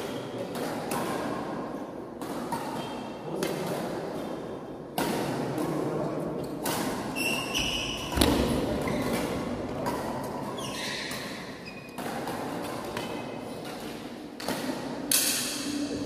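Sharp hits and short shoe squeaks on a badminton court, over a steady murmur of voices in an echoing sports hall.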